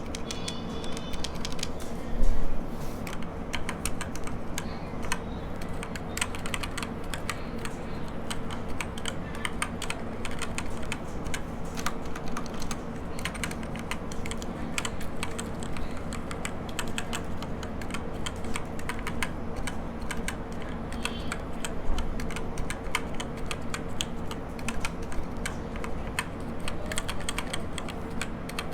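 Typing on a Redragon Mitra mechanical keyboard fitted with Outemu Silver linear switches: a steady run of plastic keystroke clacks with no click, with one louder thump about two seconds in.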